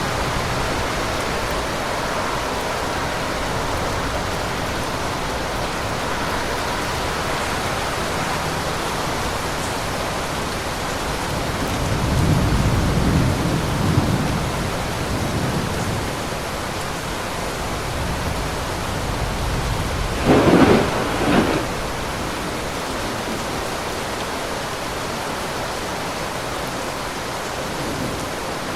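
Steady heavy rain with thunder: a low rumble rolls in about twelve seconds in, then a sharper, louder double clap of thunder about twenty seconds in.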